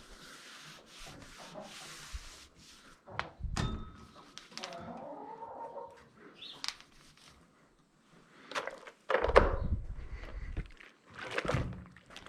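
Rubbing and scrubbing on the outside of a barn's milk pipeline during hand washing, with several knocks and thuds, the loudest a heavy thud about nine seconds in.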